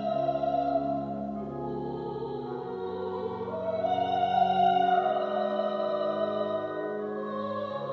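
Church pipe organ playing slow, sustained chords that move to new notes every one to two seconds.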